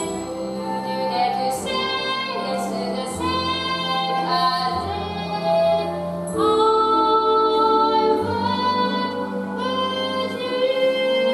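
A song from a stage musical: a woman's voice singing long held notes over instrumental accompaniment.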